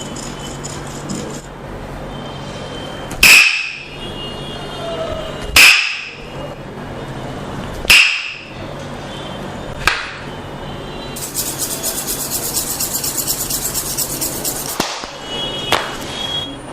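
Three loud, sharp knocks about two seconds apart, each ringing briefly, then a lighter click, then a few seconds of fast, even tapping at about five strokes a second.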